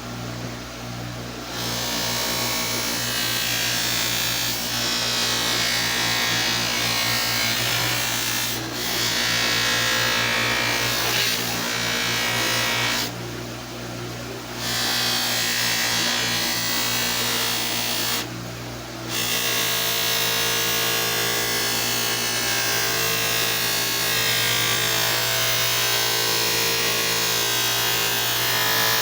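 Steel lineman's pliers held against a spinning fiber wheel on a bench grinder, a loud steady grinding hiss over the motor's even hum. The hiss drops away twice, around 13 seconds in and again around 18 seconds in, when the pliers are lifted off the wheel.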